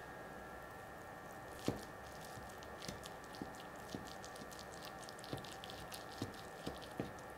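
Knife and fork cutting into a pan-fried, cheese-stuffed meatball: metal cutlery clicks and taps on the plate, the loudest about one and a half seconds in, then several more spread over the next five seconds, with a fine crackling as the browned crust gives way.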